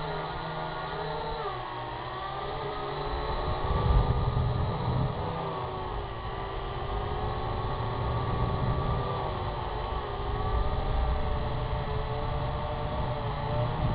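Syma X8HG quadcopter's motors and propellers whining in flight, the pitch drifting up and down as the throttle changes, over a gusty low rumble that swells about four seconds in.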